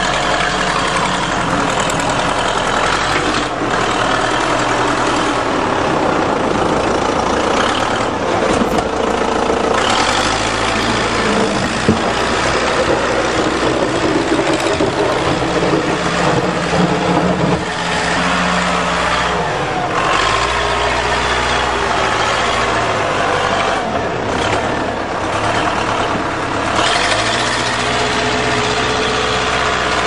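Diesel engine of a 1974 Case backhoe running while it plows snow. Its pitch and level step up and down every few seconds as it is worked.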